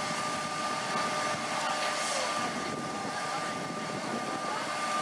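A large cargo ship running in under power toward the beach for deliberate beaching: a steady, even noise of engine and water with a faint steady whine through it.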